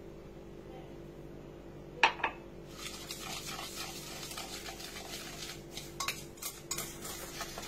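Wire whisk beating sugar into egg in a bowl: after two sharp clinks about two seconds in, a rapid, uneven clicking and scraping of the whisk against the bowl.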